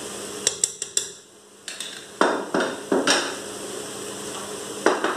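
A spoon clicks sharply against an aluminium pressure-cooker pot four times in quick succession, then a few louder rough knocks and scrapes of kitchen utensils follow, with one more near the end.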